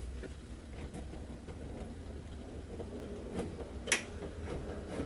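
Faint clicks and light scraping as a wire is worked through behind a dashboard with a metal pick, with one sharper click about four seconds in, over a low steady hum.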